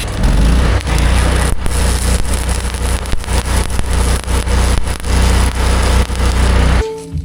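Arc welding: a dense, loud crackle of the arc over a steady low hum, stopping abruptly near the end.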